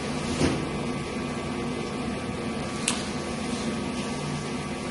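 Steady low hum and hiss of room background noise, with two faint clicks, about half a second in and near the three-second mark.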